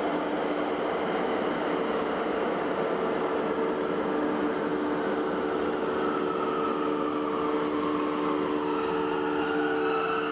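Station platform sound of electric trains standing at the platform: a steady noisy rumble with a low electrical hum of several held tones. Near the end a higher tone slowly rises and a few tuneful notes begin.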